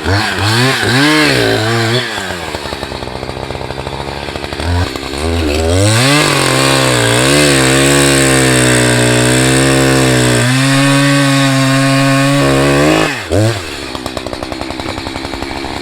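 Echo CS590 59cc two-stroke chainsaw cutting into the trunk of a large popple (aspen) tree. It revs up briefly, drops back to idle, then is held at high revs in the cut for about seven seconds before dropping back to idle near the end.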